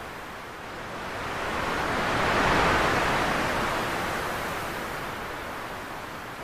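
A steady rushing noise that swells to a peak about two and a half seconds in, then slowly fades.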